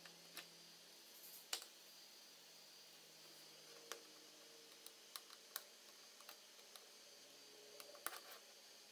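Scattered small clicks and taps of a precision screwdriver tip and small metal parts against an iPhone 5's metal shielding plate and frame, over a quiet room; the sharpest click comes about a second and a half in.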